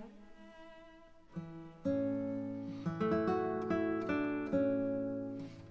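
Background music: soft plucked guitar notes, then louder guitar chords coming in about two seconds in, each ringing and dying away.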